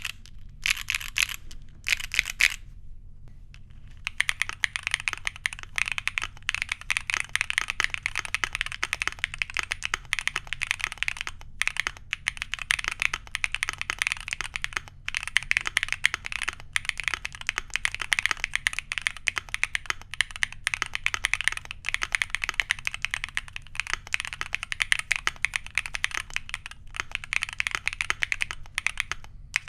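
Mechanical keyboard typing: factory-lubed Gateron Lemon Seabreeze linear switches in a Tess65 keyboard, in a fast, steady stream of keystrokes. A few keystrokes on the aluminum plate come first; then, after a break of about a second and a half, the typing goes on on a polypropylene (PP) plate.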